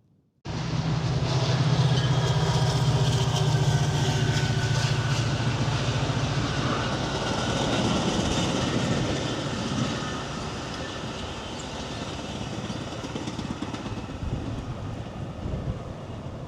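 A train passing close by, starting suddenly about half a second in. A steady low locomotive engine hum gives way after several seconds to the rushing noise of cars and wheels on the rails.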